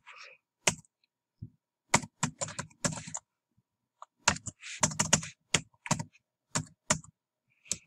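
Typing on a computer keyboard: quick runs of clicking keystrokes with short pauses between the runs.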